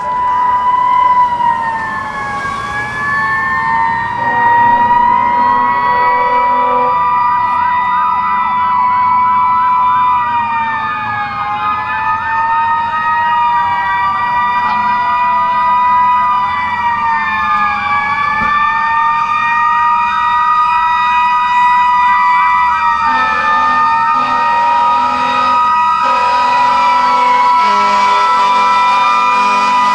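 Several fire engine sirens wailing at once, their pitches rising and falling slowly and overlapping. A lower steady tone joins in about four seconds in and again for the last several seconds.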